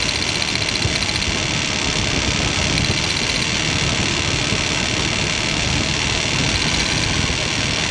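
1999 Ford Explorer's 4.0-litre V6 idling steadily under the hood; the engine has a misfire that is being diagnosed.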